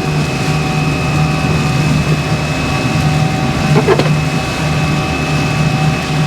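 Sportfishing boat's engine running steadily at trolling speed, a continuous drone with a steady whine over it. A brief sharper sound cuts in about four seconds in.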